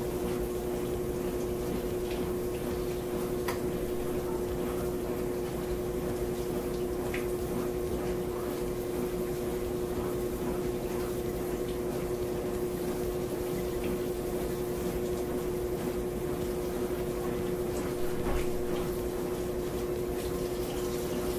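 Kitchen faucet running steadily into a stainless sink while a head of cauliflower is rinsed under the stream, with a steady hum under the water and a few small handling clicks.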